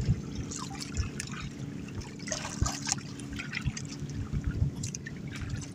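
Small waves lapping and splashing irregularly against the hull of an outrigger fishing boat, over a steady low hum.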